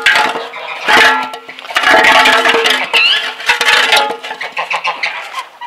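Enamel basin knocked against frozen ground to empty it of ice: sharp clanks with the metal ringing on, then a longer stretch of clattering and scraping as the ice breaks up.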